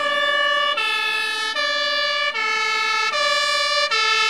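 German fire engine two-tone siren (Martinhorn) sounding, alternating between a high and a low note about every 0.8 seconds.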